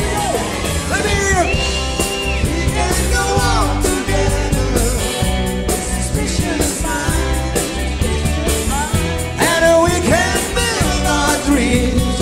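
Live rock and roll band playing a passage without words: a lead line of notes that bend up and down over a steady drum beat and bass.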